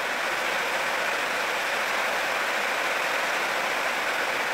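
Steady hiss of heavy rain, even and unbroken.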